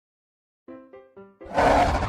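Four short pitched notes of a children's jingle, then about a second and a half in a loud animal-roar sound effect, a big-cat-style roar, breaks in over them.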